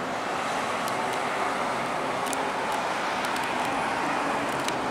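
Steady road traffic noise from cars on a city street and an elevated expressway, with a few faint ticks.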